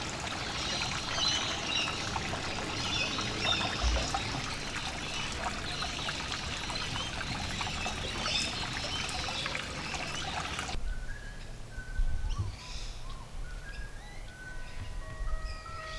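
Creek water trickling over rocks, steady and fairly loud, until it cuts off suddenly about eleven seconds in. A slow tune of single high notes then begins, with a low rumble underneath.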